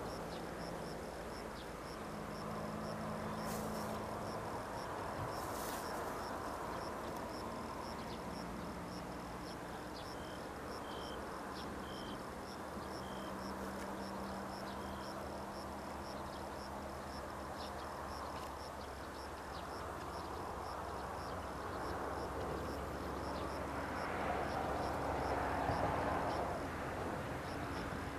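Distant D1 diesel multiple unit running, a low engine hum that swells near the end as the train draws closer, over a steady high chirping of insects and a few short bird calls in the middle.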